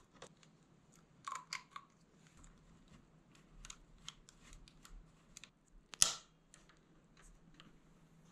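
Scattered light clicks and rattles of a bicycle rear derailleur, chain and multi-tool being handled while the derailleur is fitted to its hanger, with one sharper click about six seconds in.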